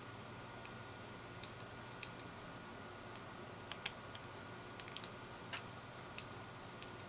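Faint, irregular light clicks and ticks of a small screwdriver and its bit being handled against the plastic parts of a headphone, over a steady low hum.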